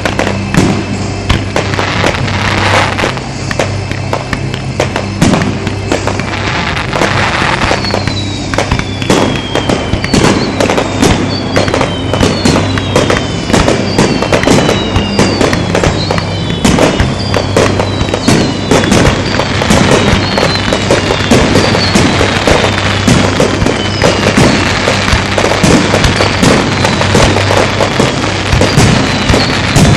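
A Japanese starmine fireworks barrage: a dense, rapid run of shell bursts and crackles. From about eight seconds in, whistles falling in pitch repeat again and again among the bursts.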